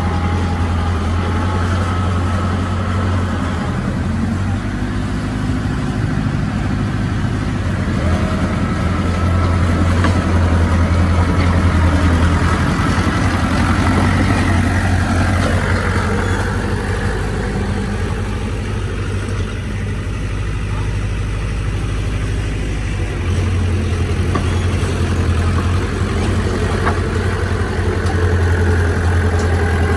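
Heavy diesel engine of earthmoving machinery running steadily, its low note swelling and easing several times as the load changes.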